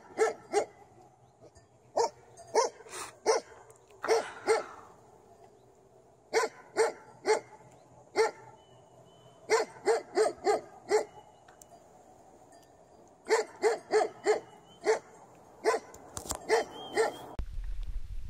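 A dog barking repeatedly, in short runs of two to five barks with pauses between. Shortly before the end the barking stops and wind rumbles on the microphone.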